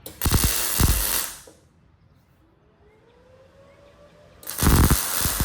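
Arc welder laying two tack welds, each a crackling, sizzling burst of about a second: one just after the start and one near the end.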